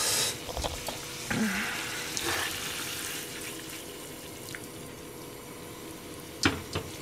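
Chicken livers simmering in sauce in a frying pan on a gas burner: a steady bubbling hiss, with a sharp knock of the pan being handled about six and a half seconds in.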